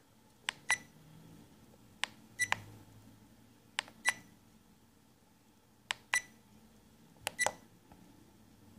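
Small action camera's buttons pressed five times, every second or so: each press is a small click followed by a short electronic beep from the camera.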